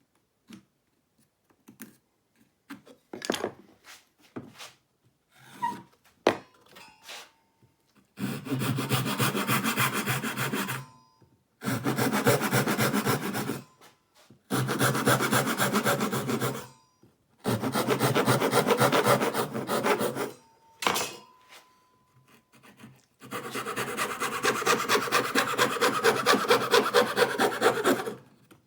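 A hand saw cutting wood for a dovetail joint: five spells of rapid back-and-forth sawing strokes with short pauses between them, after a few seconds of scattered light knocks from tools and wood being handled.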